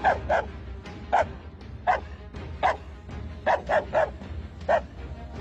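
Dog barking repeatedly: about nine short, sharp barks, mostly spaced under a second apart, with a quick run of three about two-thirds of the way through.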